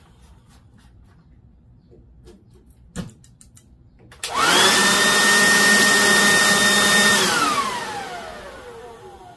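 Air blower forced into the turbocharger compressor of a homemade turbojet, starting cold to feed air to the combustor: a rushing whine rises quickly to a steady pitch for about three seconds, then winds down and fades after it is shut off. A few sharp clicks sound about three seconds in, before the blower starts.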